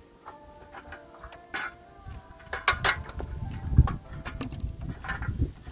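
Irregular metallic clicks and knocks of a wrench and loosened motorcycle exhaust parts being handled during removal of the exhaust pipe, with low handling rumble in the second half.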